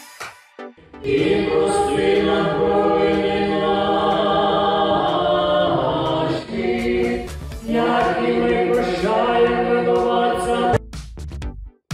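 A choir singing long held chords, with a brief break about six seconds in, cut off near the end by a few sharp, choppy beats.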